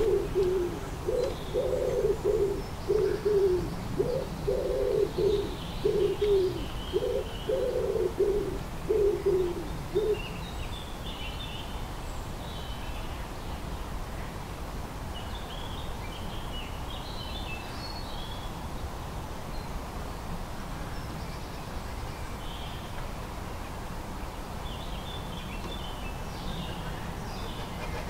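A pigeon cooing: a run of low, evenly spaced coos for about the first ten seconds, then stopping. Small songbirds chirp faintly and high in the background.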